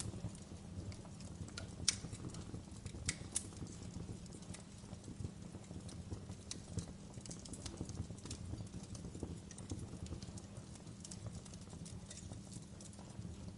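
Log campfire crackling: a steady low rumble of burning under frequent small pops and snaps, with a few sharper, louder snaps about two and three seconds in.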